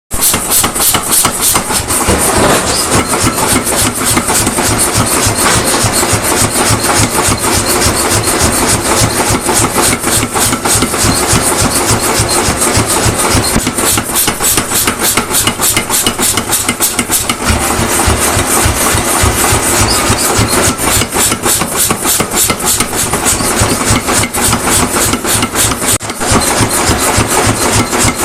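Rapid, continuous hammering on a Damascus steel billet being forged, the blows coming in quick even succession over the steady run of a motor, as from a power hammer.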